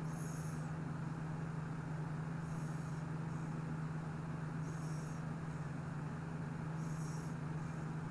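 Steady low hum, with a short high chirp about every two seconds.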